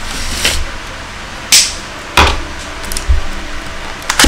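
Cardboard box being handled and opened with a small pocket knife: a few sharp clicks and knocks, the loudest two about a second and a half and two seconds in.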